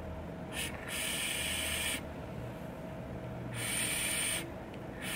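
Airy hissing as air is drawn through a Squape N[duro] rebuildable tank atomiser firing a 0.8-ohm coil at 32 watts, in several separate draws of up to about a second each.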